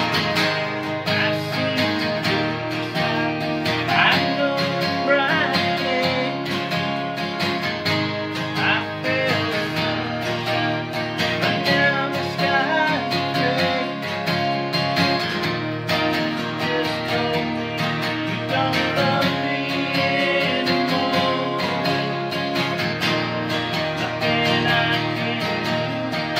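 Two acoustic guitars playing a country tune together, strummed chords going steadily throughout.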